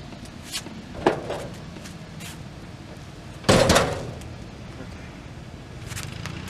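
Heavy steel Snap-on tool box being heaved and shoved into position, knocking and thudding several times, with one louder, heavier thud or scrape just past halfway.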